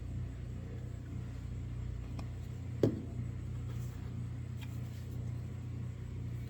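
Steady low background hum, with a few faint clicks and one light knock about three seconds in, as the small parts of a ratchet head are handled while it is oiled and put back together.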